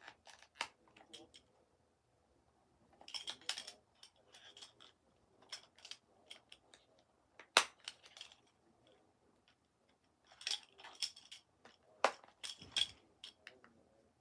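Scattered sharp clicks and light clinks of small hard objects being handled close to the microphone, coming in little clusters, with one sharper click about halfway through.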